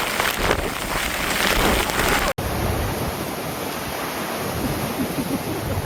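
Wind buffeting the microphone with rain, broken by an abrupt cut about two seconds in, then a steady rush of wind and sea surf.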